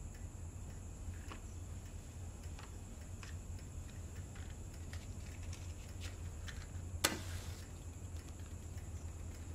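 Quiet room tone with a steady low hum and scattered faint ticks; about seven seconds in, a sharp strike followed by a short hiss as a cigarette is lit.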